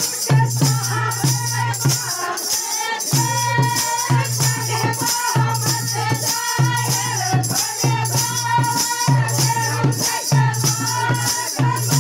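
Desi folk song: singing voices over a steady rattling, shaker-like percussion beat and a low sustained tone that drops out and returns.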